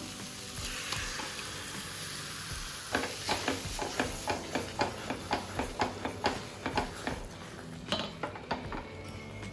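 Masala frying with a steady sizzle in a stainless steel pan, then a wooden spatula stirring boiled vegetables into it, scraping and knocking against the pan about three times a second.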